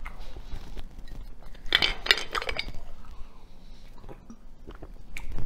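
Small clinks and knocks of a glass water bottle and tableware being handled, with a denser cluster of them about two seconds in.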